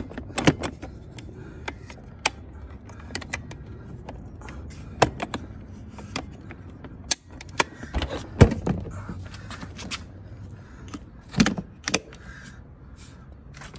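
Scattered clicks and knocks of hard plastic and metal as an airsoft MP5 and its briefcase are handled, with a sharp knock about eight seconds in and a quick pair of clicks near the end as a case latch is worked.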